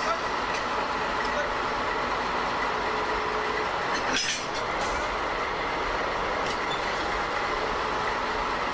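Steady running noise of two locomotives standing coupled together during shunting, with a single sharp metallic clank a little over four seconds in.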